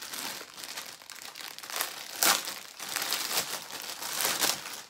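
Thin clear plastic garment bag crinkling and rustling as it is handled and pulled open, with louder crackles about two seconds in and again near the end.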